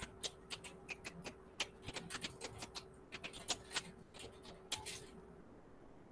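Typing on a computer keyboard: a quick, irregular run of light clicks that stops about five seconds in, over a faint steady hum.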